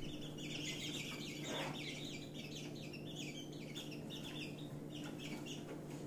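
African yellow white-eye giving a fast, continuous run of short, high, buzzy notes, about six a second, for about five seconds. A steady low hum runs underneath.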